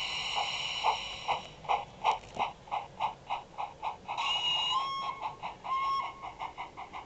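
Howes steam sound file for A1 Pacific 60163 Tornado, played from a model locomotive's small speaker: exhaust chuffs as the locomotive pulls away, the beats coming steadily quicker. A whistle sounds about four seconds in, stepping up in pitch, and a second short whistle follows near six seconds.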